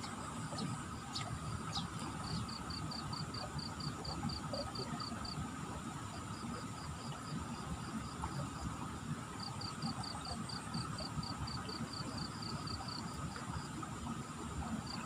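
Insects chirping in runs of rapid, evenly spaced high pulses, about five a second, that start and stop several times, with a steady thin insect drone. Under them is a continuous low rushing noise.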